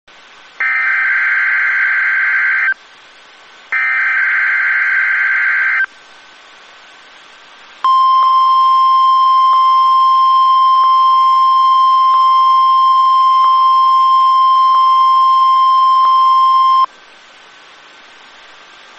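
NOAA Weather Radio test signal over a radio receiver: two harsh warbling data bursts of the SAME digital header, each about two seconds long, then after a short pause the 1050 Hz warning alarm tone, one steady high tone held for about nine seconds. Faint radio hiss fills the gaps between them.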